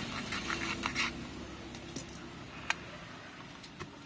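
Small clicks and scrapes from working at the edge of a phone's mid-frame with fingers and a metal pick. A quick run of clicks comes in the first second, then a few single sharp clicks, the sharpest near the middle.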